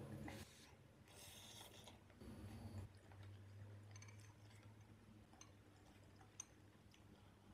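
Quiet close-up eating sounds: a couple of short slurping and chewing noises of spicy instant noodles in the first three seconds, then a few light clicks of a metal fork and chopsticks against a glass bowl.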